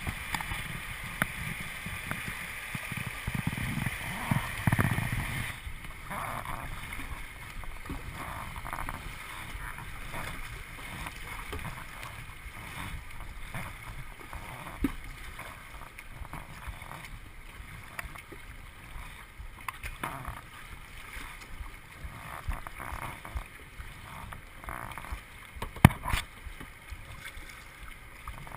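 Rushing river water from the rapids, then from about five seconds in, water splashing and gurgling against a plastic kayak's hull with irregular paddle strokes as it moves through choppy current. A single sharp knock near the end is the loudest sound.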